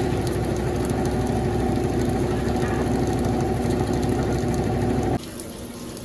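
Consul CWS12 washing machine running with a steady mechanical hum while draining between rinses. It cuts off suddenly about five seconds in, as the drain stage ends just before water fills for the second rinse.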